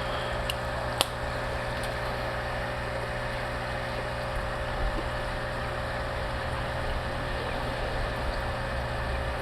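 Steady mechanical hum from a running machine, with one sharp click about a second in.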